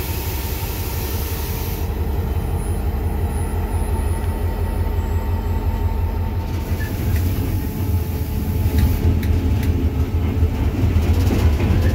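EMD GL18B locomotive heard from its cab: the EMD 8-645 two-stroke diesel running with a steady low rumble as the train rolls over the track, louder from about nine seconds in. A hiss at the start stops about two seconds in.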